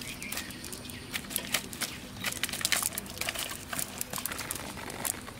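Quick irregular slaps, flaps and rustles as live fish are worked free of a wet cast net among leaves, busiest around the middle.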